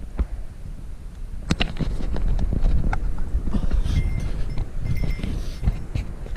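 Footsteps of a hiker scrambling over rock and loose stones on a steep trail: irregular crunches, scrapes and knocks of boots on stone, over a low rumble on the microphone.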